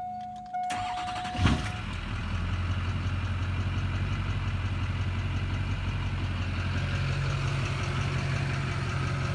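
A dashboard warning chime dings once, then the diesel pickup's engine cranks briefly and starts about a second and a half in, settling into a steady idle: the first start after the fuel filters were replaced and the system primed, with the engine firing promptly.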